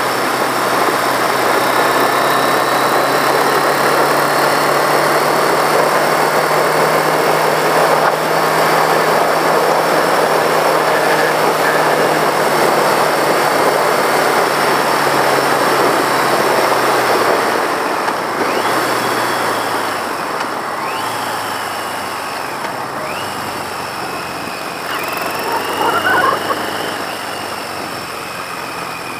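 1982 Yamaha XJ650's inline-four engine running at cruising speed under a heavy rush of wind. A little over halfway through, the engine eases off and the overall sound drops, with a few short rises and falls in engine pitch as the bike slows.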